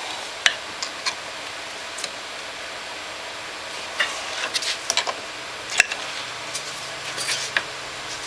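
Steel seal puller prying at a tight pinion seal in an ATV rear differential housing: irregular sharp metal clicks and knocks as the hook catches, slips and levers against the seal and the housing, with the seal not yet moving.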